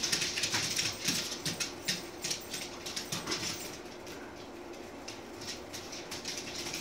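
Dogs' claws clicking and scrabbling on a hardwood floor as two dogs wrestle, the clicks coming thick and fast at first and thinning out after a few seconds.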